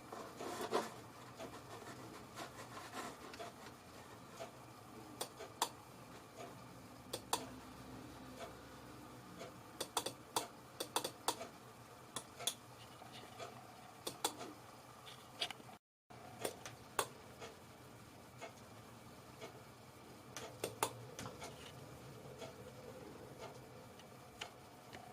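Scattered light clicks and ticks at an irregular pace over a faint steady hum, with a few louder clicks in clusters.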